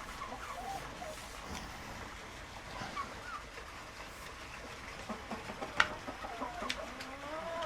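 Chickens clucking softly in a coop, short scattered calls with a couple of sharp clicks about two-thirds of the way through.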